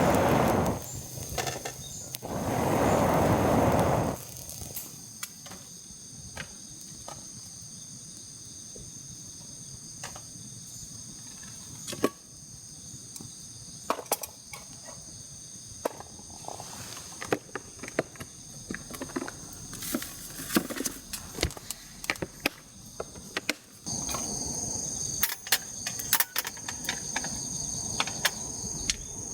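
Insects, crickets or the like, chirping steadily in high thin tones, with many scattered sharp clicks and knocks. A loud rushing noise fills the first few seconds and cuts off; a softer haze returns near the end.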